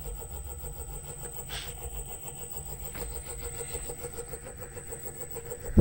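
Hallmark 2 hp three-phase AC motor on a 2x72 belt grinder running with no belt, fed by a variable frequency drive at 40% speed: a steady hum. The motor vibrates badly, and the owner thinks the problem comes from inside the motor.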